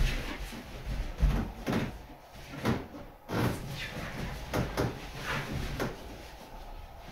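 Latex balloons being handled and shifted, their skins rubbing against each other in a string of short, irregular strokes. No balloon pops.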